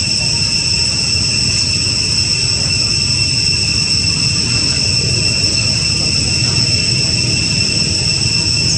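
Continuous high-pitched drone of insects in the tree canopy, one unchanging buzz, over a low steady rumble.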